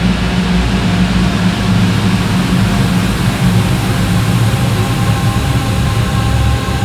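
Slowed-down ambient wall of sound: a dense, steady drone of stretched distorted guitars, low and rumbling, with faint held tones above.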